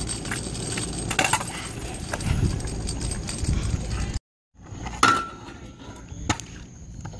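Stunt scooter rolling and clattering on asphalt and a wooden skate box. After a short break in the sound, two sharp metallic clanks come a little over a second apart, the first with a brief ring, as the scooter lands.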